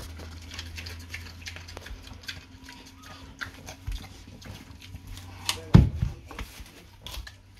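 A pet pig eating a butternut squash: a run of crunching, smacking chews, with a louder low thud about six seconds in as it shoves the squash with its snout.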